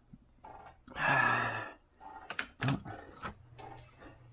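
Hand-tool and parts handling under the hood: a short rasping scrape about a second in, then several sharp clicks and knocks.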